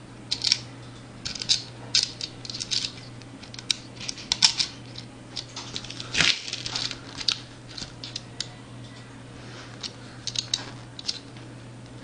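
Irregular small clicks, taps and scrapes of hands handling a resistor's wire leads and the metal screw-terminal posts of a tabletop circuit board, over a steady low hum.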